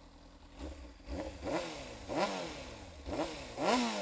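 Honda CBR600RR's 599 cc inline-four engine revved with several quick throttle blips while the bike stands still, each rev rising sharply and falling back toward idle.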